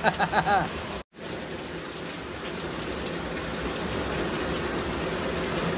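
A man laughs briefly, then after a cut, heavy storm rain pours down steadily on a yard and porch.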